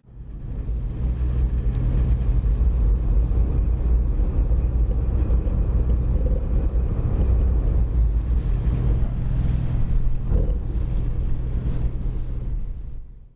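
Ferry engine running with a steady low rumble and hum.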